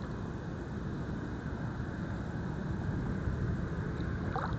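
Steady low rumbling noise with an even hiss over it, and a brief faint squeak near the end.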